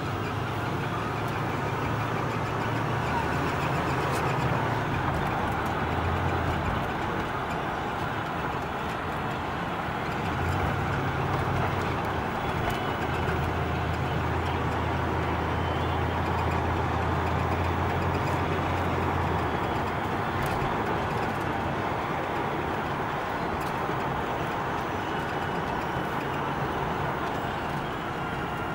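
1979 Pontiac Trans Am's V8 engine and road noise heard from inside the cabin while driving at a steady cruise. The low engine note shifts a few times.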